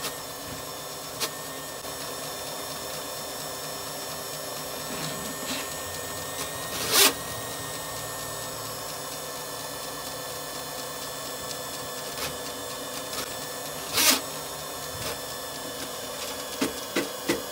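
Electric flexible-shaft drain rodder running, its motor spinning an 8 mm wire cable down a clogged kitchen floor drain: a steady mechanical whine. Two short loud bursts come about seven seconds in and again about seven seconds later.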